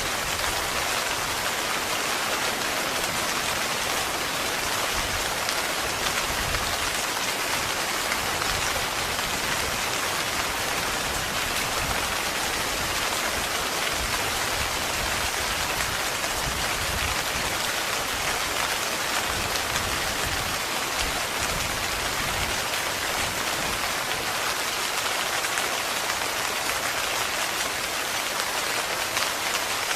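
Heavy rain falling steadily on a tent, a dense, even hiss of drops that never lets up.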